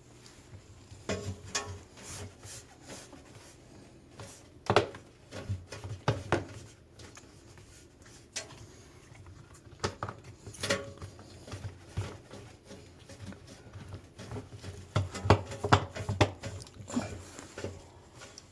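Irregular knocks, clicks and rubbing of hands and tools handling the parts of a front-loading washing machine during a door-seal replacement, with a few sharper knocks about five, ten and fifteen to seventeen seconds in.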